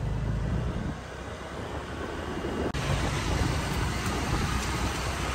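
Motorbike engine running at low speed, with wind and road noise rushing over the microphone. A brief break about three seconds in, after which the wind hiss is stronger.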